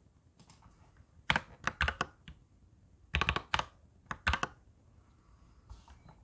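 Typing on a Royal Kludge mechanical keyboard: three short runs of key clicks, starting about a second in, about three seconds in and about four seconds in, with quiet pauses between them.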